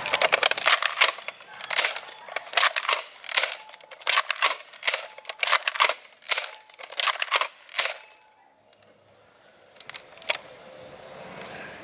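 Nerf Elite Disruptor dart blaster being primed and fired repeatedly: a run of sharp plastic clacks and snaps, about two a second, for roughly eight seconds, then a pause and one more click near the end.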